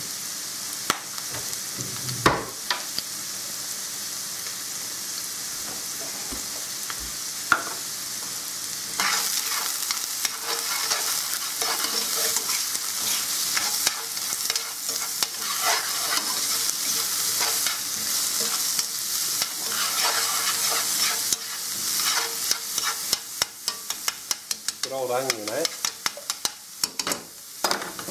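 Onions and vegetables sizzling in oil in a pan while being stirred, with the utensil clicking and scraping against the pan. The sizzle grows louder about nine seconds in, and a quick run of sharp clicks comes near the end.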